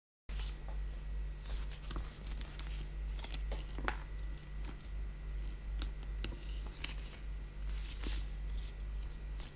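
Red adhesive vinyl sheet being unrolled and handled: soft rustling with scattered small clicks and crinkles over a steady low hum.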